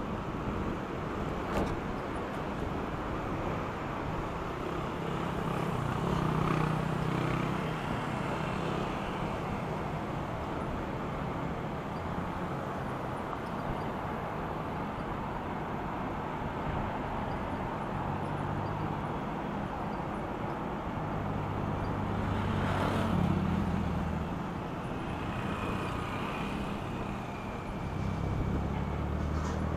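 City road traffic heard from a moving e-bike: steady road noise with the low engine rumble of cars and motorcycles going by, swelling several times.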